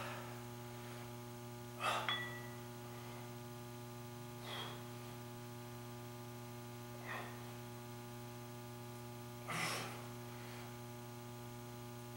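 A man's sharp exhalations, one with each pull of a bent-over dumbbell row, five times about two and a half seconds apart, over a steady electrical hum.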